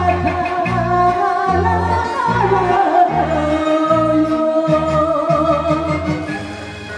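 A woman singing through a handheld microphone over a karaoke backing track, her voice holding long wavering notes above a bass line that pulses about twice a second.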